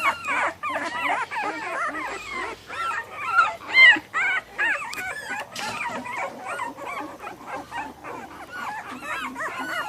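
A litter of young American Bully puppies whimpering and yelping together, many short high-pitched cries overlapping, with a few louder yelps about three to four seconds in.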